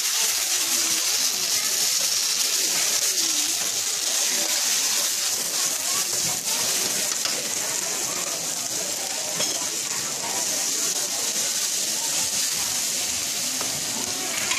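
Greens, noodles and bean sprouts sizzling steadily as they are stir-fried in a hot wok over a gas burner.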